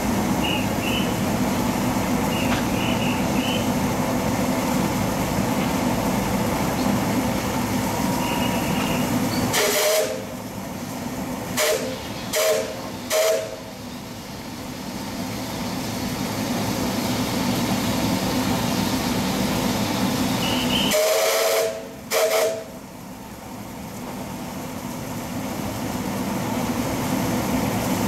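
C2 narrow-gauge steam locomotive standing with steam hissing steadily. About ten seconds in the hiss cuts off with a whistle blast, followed by three short toots. The hiss then builds back up and breaks off again for two more short whistle blasts.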